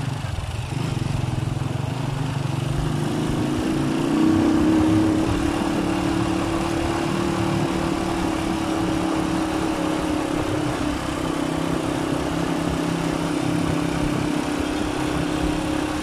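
Motorcycle engine running under way on a gravel road, its pitch climbing about three seconds in and loudest just after, then holding steady.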